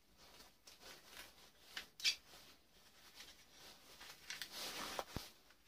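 Hand tool picking and pulling copper winding wire out of a small motor armature: scattered metal clicks and scrapes, with a sharp click about two seconds in and a stretch of scraping near the end.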